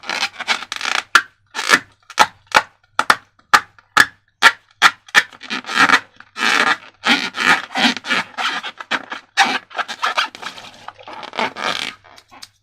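A run of short, sharp rubbing and scraping strokes, two or three a second, giving way about halfway through to longer rasping scrapes, as materials for slime-filled balloons are handled and worked.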